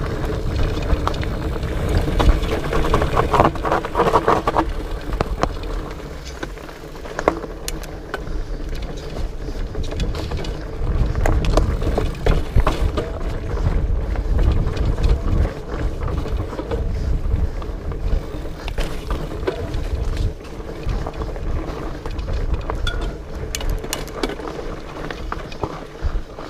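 Specialized Fatboy fat bike ridden over a rocky trail: a steady low rumble from the tyres and the ride, broken by frequent sharp clicks and rattles of the bike over rocks and roots.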